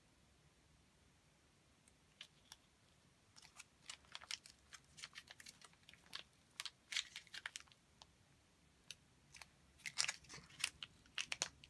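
Small plastic tube of Izink Diamond glitter paste crinkling and clicking as it is squeezed hard by hand, the paste stuck and slow to come out. Irregular sharp crackles start about two seconds in and come thickest in the middle and again near the end.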